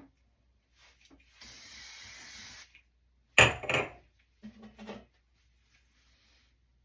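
An aerosol hair spray can spraying in one steady hiss of about a second and a quarter, followed a moment later by a loud double clatter of something hard being set down.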